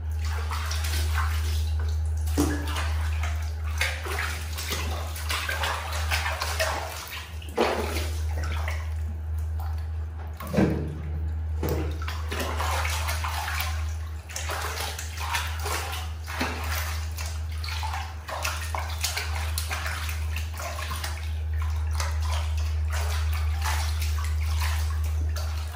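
Water sloshing and splashing in a plastic bath basin as hands scoop it over a baby monkey being washed, with a steady low hum underneath.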